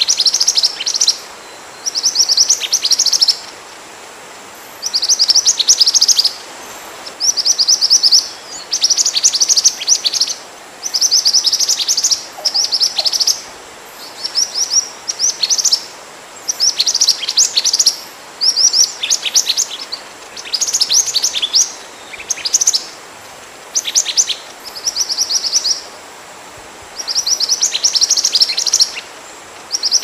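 Bird-lure recording of minivet calls: bursts of rapid, high, thin chirps, each about a second long, repeating every second or two with short pauses between, over a faint steady hiss.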